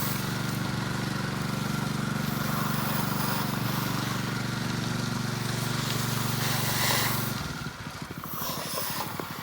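An engine running steadily at constant speed, which drops away abruptly about seven and a half seconds in, leaving a quicker, lower pulsing.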